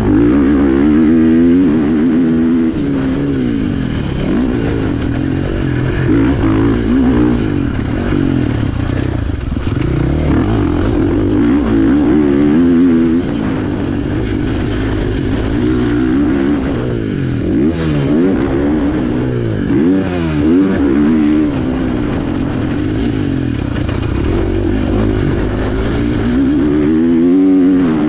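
KTM 450 SX-F motocross bike's single-cylinder four-stroke engine revving hard and dropping off over and over as the throttle is opened and shut while riding, its note rising and falling every second or two.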